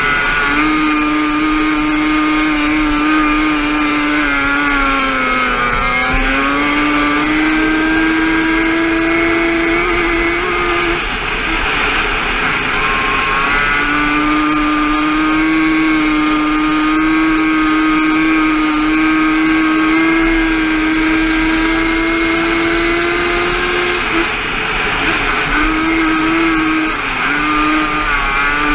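Yamaha Banshee quad's twin-cylinder two-stroke engine racing flat track at high revs, the pitch slowly climbing down the straights. It drops off as the throttle is rolled off for the turns, about five seconds in and again around eleven to fourteen seconds, and is blipped on and off near the end.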